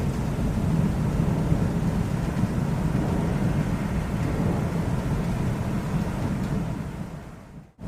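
Low rolling thunder rumbling steadily, fading away near the end.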